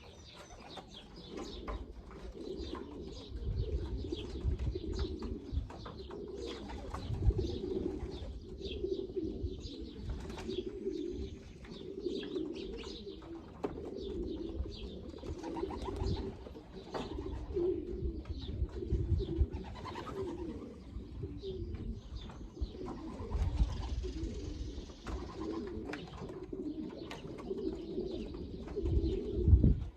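Racing pigeons cooing continuously, several birds at once, with scattered clicks and a few low thumps.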